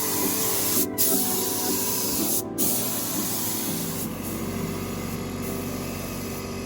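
HVLP spray gun hissing steadily as it sprays primer, with two brief breaks in the spray about a second and two and a half seconds in.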